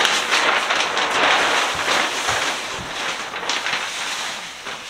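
Thin plastic sheeting rustling and crinkling as it is handled and held up against a ceiling beam; the rustle is loud and uneven, easing a little partway through.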